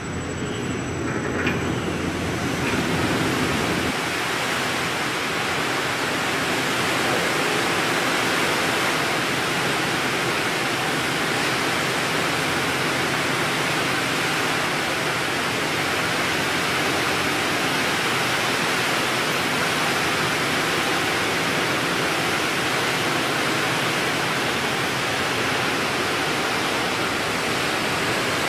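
Steady, even machinery hiss as a large cloth batching machine runs, winding glass-fibre fabric onto a big roll, with no distinct motor tone or rhythm.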